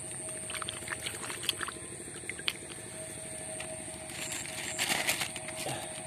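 Small splashes and clicks of a hand feeling through shallow muddy water at a paddy-ditch edge, with a louder splashy stir about five seconds in.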